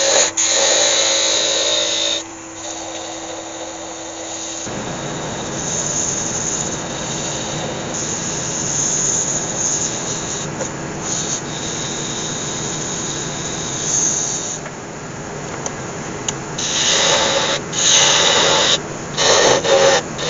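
Wood lathe spinning an Iroko workpiece while abrasive paper is held against it, giving a steady rasping hiss. In the first two seconds, and again in a run of louder broken bursts in the last few seconds, a hand tool cuts at the spinning wood.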